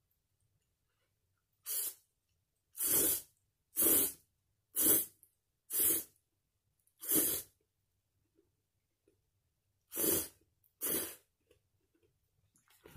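Noodle slurping: a man sucking soupless instant aburasoba noodles off chopsticks in eight short, loud slurps about a second apart, the last two coming after a pause of a couple of seconds.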